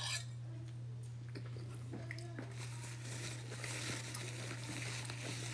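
A person chewing food quietly, over a steady low hum, with a few faint small clicks.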